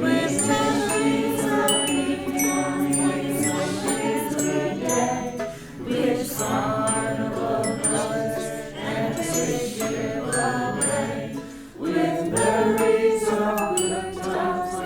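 Mixed choir singing a round, several voice parts overlapping so the words blur together, with high tinkling chime-like bell notes above. The singing dips briefly twice.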